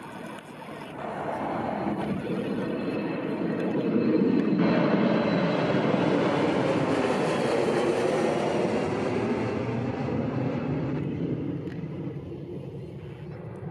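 Jet airliner passing by: its engine noise swells over the first few seconds, stays loud with a faint high whine above the rumble, then fades toward the end.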